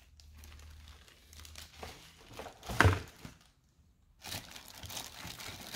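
Plastic packaging bags crinkling and rustling as they are handled inside a cardboard box, with a louder crinkle about three seconds in and a brief pause just before the four-second mark.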